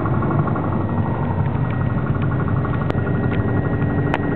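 Light single-engine plane's engine and propeller running steadily at low power while taxiing, heard from inside the cockpit. Two sharp clicks, about three seconds in and again near the end.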